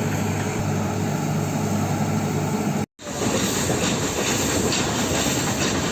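A train running on its track, a steady engine hum under the rattle of the wheels and cars. The sound cuts out completely for an instant about halfway through, then resumes as a clattering rattle with faint regular clicks of the wheels over rail joints.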